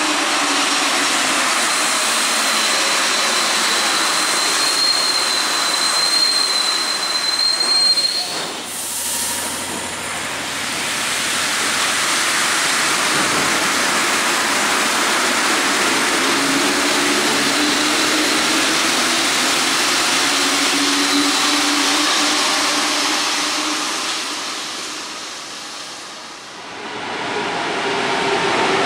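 Paris Metro steel-wheeled trains running through stations: steady rolling and wheel noise, with a thin high squeal held for the first eight seconds. After a break, another train runs alongside the platform, and near the end the noise dips and then swells again as a train approaches.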